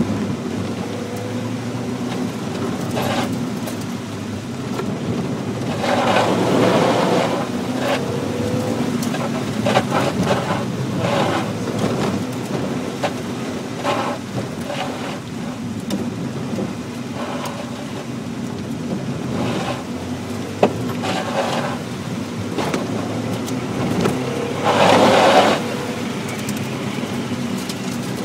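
Mazda Miata's four-cylinder engine running, heard from inside the cabin, under the wash of tyres on a flooded autocross course. A loud rushing noise swells twice, about six seconds in and louder at about twenty-five seconds.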